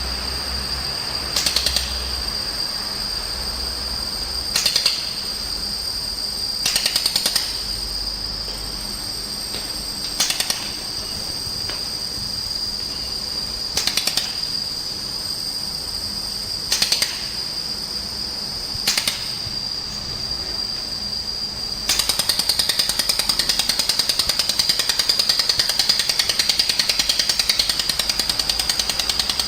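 Handheld laser welding torch firing: several short crackling weld bursts a couple of seconds apart, then from about three quarters of the way in a continuous rapid pulsing buzz as it welds a longer seam. A steady high whine runs underneath.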